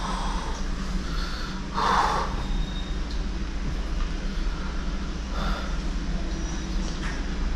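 A person drinking water with breathy gasps between swallows, the strongest about two seconds in and a weaker one near the middle, over a steady low hum.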